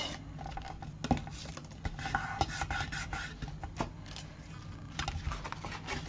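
Black cardstock being handled and folded along its score lines by hand: quiet paper sliding and rubbing over a craft mat, with a few light taps.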